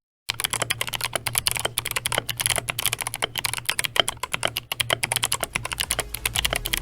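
Fast, steady typing on a Tokyo 60 aluminum-case mechanical keyboard, a dense run of key clacks beginning just after a brief gap. The builder calls the keyboard's sound a little hollow.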